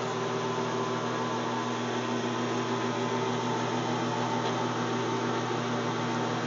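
Precision Matthews PM1236 geared-head metal lathe running at a steady speed, a constant hum with several fixed tones, as a finish reamer cuts a 6PPC chamber in a rifle barrel turning between centres.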